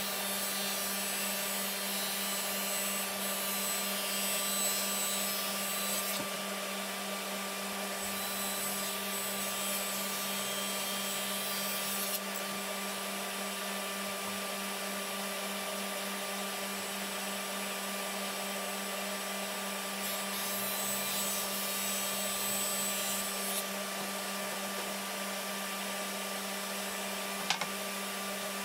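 An electric power tool motor running steadily with a constant hum. Stretches of higher rasping hiss come and go over it, like the tool working against wood, and there is a small click near the end.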